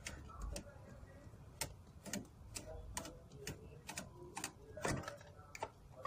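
Light, irregular clicks and taps of a semi-automatic washing machine's drain valve being handled and opened, with one sharper knock about five seconds in.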